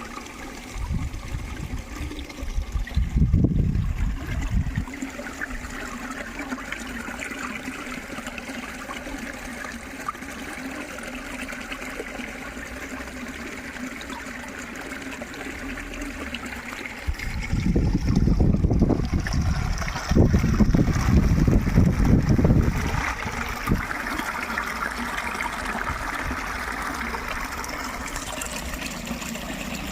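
Water trickling and flowing steadily, like a small stream. Heavy low rumbles come in twice, about a second in and again from about seventeen seconds, each lasting a few seconds.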